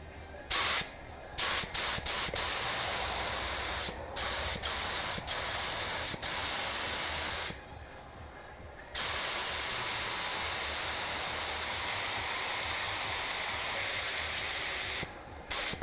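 Compressed-air paint spray gun spraying paint onto a car body with the trigger pulled in passes. There is a short burst, then a long pass with brief breaks, a pause of about a second and a half, a steady pass of about six seconds, and quick short bursts near the end.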